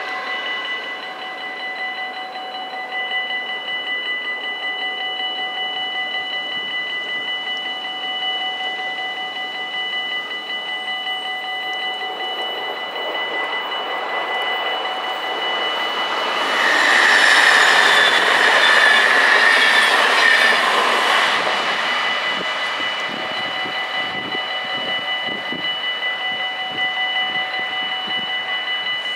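Dutch level-crossing bells ringing steadily while a double-deck electric passenger train passes. The train's noise swells about halfway in and peaks for several seconds with a high squeal, then fades as the bells ring on.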